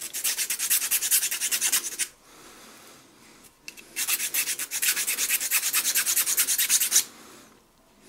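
Hand file scraping across a G10 fibreglass knife scale in quick, evenly spaced short strokes: one run, a pause of about two seconds, then a second run starting about four seconds in.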